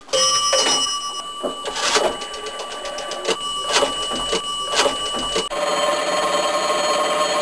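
Rotary telephone dial being wound round and spinning back several times, with fast trains of clicks as it returns. For the last two seconds a steady hiss with a low hum, like an open phone line.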